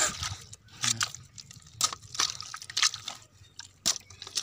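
A long-handled digging hoe (kodal) chopping and levering into wet clay mud: several irregular wet chops and squelches, roughly a second apart, as a swamp-eel burrow is dug open.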